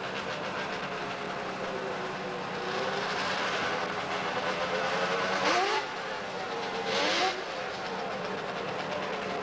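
Racing snowmobile two-stroke engines running, with two loud, sharply rising revs about five and a half and seven seconds in.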